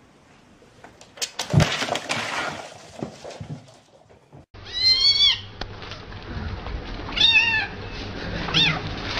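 A ginger kitten meowing three times, short rising-then-falling cries a second or two apart. Earlier, before the meows, there is a brief clattering, rustling noise.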